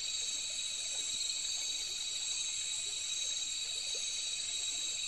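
Steady chorus of night insects: a continuous high-pitched trilling in several layers, unbroken throughout.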